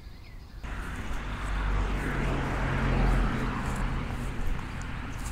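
A car passing on the street, its engine and tyre noise swelling to a peak about three seconds in and then fading.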